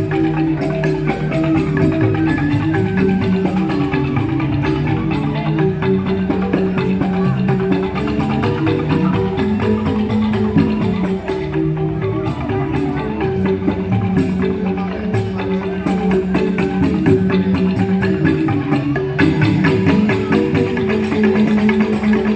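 Balinese joged bumbung gamelan playing: bamboo tube xylophones (grantang) ring out a continuous, busy run of mallet notes with light percussion.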